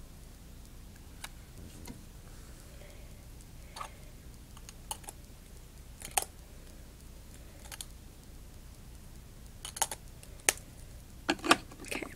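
Scattered light plastic clicks and taps from small makeup tubes and caps being handled close to the microphone, a few at a time, growing more frequent and louder near the end.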